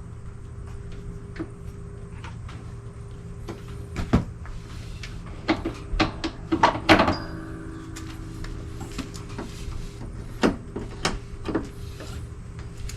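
Scattered clicks and knocks, a few sharper ones standing out, over a steady low hum.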